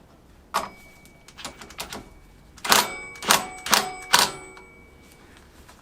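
Metal parts clinking together. A single click and a few light ticks are followed by four louder, ringing metallic clanks about half a second apart.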